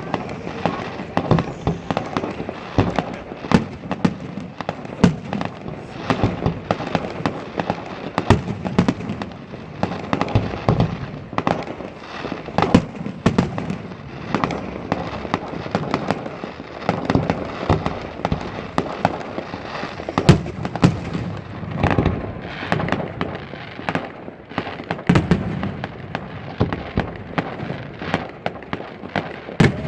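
Fireworks display: a dense, continuous barrage of bangs and crackling shells going off many times a second.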